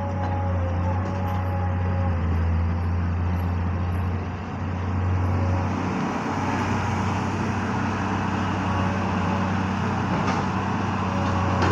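Long-reach excavator's diesel engine running with a steady low drone, dipping briefly about four seconds in. A faint whine sits over it in the first few seconds.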